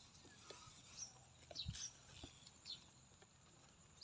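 Near silence in the open, with faint small-bird chirps: short, high, falling notes repeating every half second or so. A few soft clicks and grass rustles from handling are mixed in.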